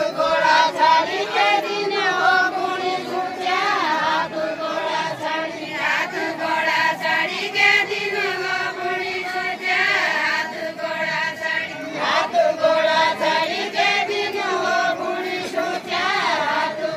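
A chorus of women singing a deuda folk song together in a chanting, repeated melody, with no instruments. The phrases rise and fall and break for a breath every couple of seconds.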